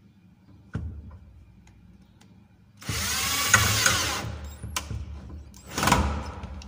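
Power drill-driver driving a screw through a metal drawer slide into the wooden drawer side, running in two bursts: a longer one about three seconds in, its motor whine rising as it spins up, and a shorter one near the end, with small clicks before each.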